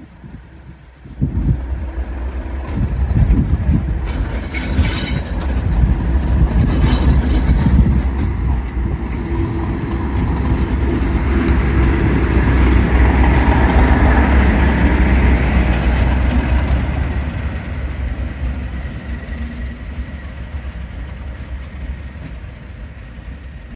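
Class 37 diesel-electric locomotive 37418 passing close by, its English Electric V12 diesel engine rumbling. It grows louder as the locomotive draws alongside and fades as it pulls away near the end.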